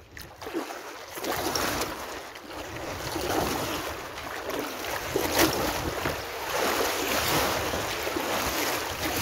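Kayak paddle strokes splashing in the water, a stroke about every two seconds, with water washing along the hull and wind buffeting the microphone.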